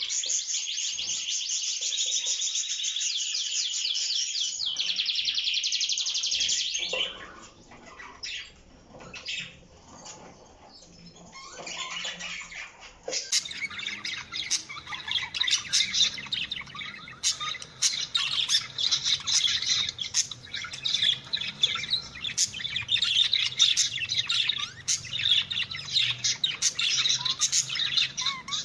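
Canary singing a dense, rapid trilling song for about seven seconds. It then breaks into sparse, quieter chirps, and from about thirteen seconds in gives way to a busier run of chirps and song from another recording.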